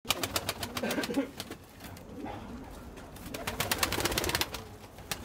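Turkish tumbler pigeons in a wooden loft: low cooing, with bursts of wing claps and flapping in the first second and again from about three to four and a half seconds in as a bird flies across the loft.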